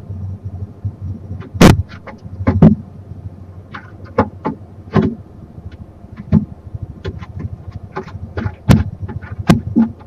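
A barn owl moving about on a wooden nest box roof: an irregular run of knocks and scrapes, a few of them sharp and loud, over a steady low hum.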